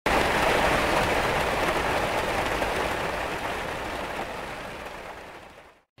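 Steady rain, a dense hiss that fades out gradually over the last few seconds.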